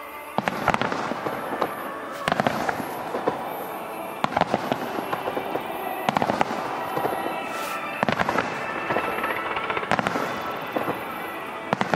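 Fireworks finale: volleys of aerial shells bursting in loud clusters about every two seconds, with crackling between the volleys. The display's music plays underneath.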